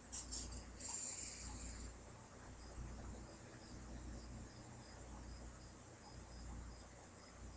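Faint cricket chirping: a short high chirp repeating evenly about three times a second over a low steady hum, with a brief rustle in the first second or two.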